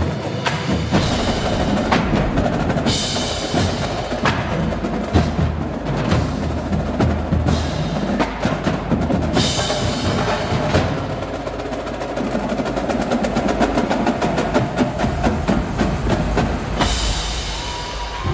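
Indoor percussion ensemble playing: the drumline's snares, tenors and bass drums in fast, dense rhythmic passages, together with the front ensemble's keyboard mallet instruments. Three bright swells of high, washing sound rise over the drumming, about three seconds in, near the middle and near the end.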